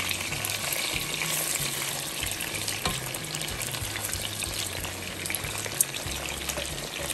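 Mackerel pieces shallow-frying in oil in a non-stick frying pan, sizzling and crackling steadily. A few sharp clicks come from a metal spoon turning the pieces.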